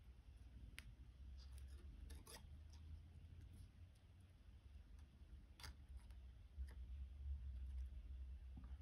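A few faint, scattered clicks and ticks of copper wire and beads being handled as the wire is threaded through a beaded wire-wrapped cuff, over a low hum.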